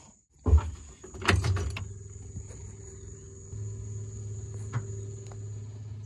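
A thump and a few sharp clicks in a New Holland L160 skid loader's cab, then a steady low hum with the ignition switched on while the diesel's glow plugs preheat. The hum steps up in level about three and a half seconds in, under a faint high steady trill.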